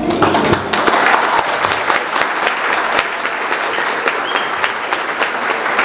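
Crowd applauding, a dense patter of many hands clapping that swells in the first couple of seconds and then carries on steadily.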